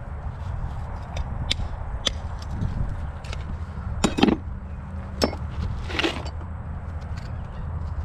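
Farrier's hammer tapping horseshoe nails into a horse's hoof: a handful of sharp knocks at uneven spacing, the loudest about four seconds in, over a steady low rumble.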